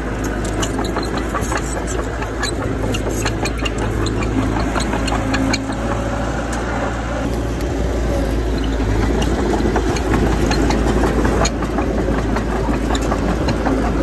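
Heavy diesel earthmoving machinery running steadily under load, with frequent sharp clanks and knocks over the engine noise, a little louder in the second half.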